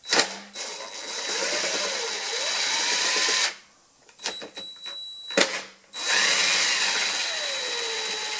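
Cordless drill-driver backing out the carburetor mounting screws on a two-stroke leaf blower, so the carburetor can come off to be checked for a clog. It makes two runs of about three seconds each, the first starting about half a second in and the second about six seconds in, with a few short trigger blips and clicks between them. The motor's pitch sweeps up and down during each run.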